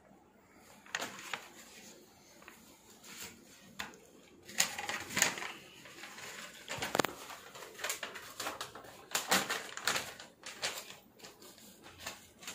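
Paper banknotes and bundles of notes being handled: irregular crisp rustles and clicks, busiest in the middle.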